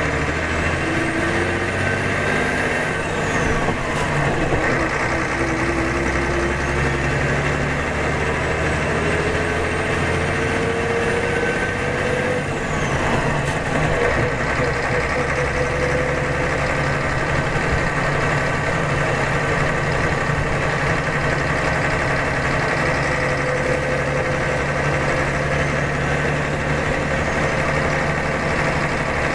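Scania DS9 8.5-litre six-cylinder turbo diesel of a Scania K92CR coach heard from inside the passenger cabin, running steadily on the road. Its note rises several times as the coach pulls away and gathers speed, and a faint high whine climbs and then drops off twice in the first half.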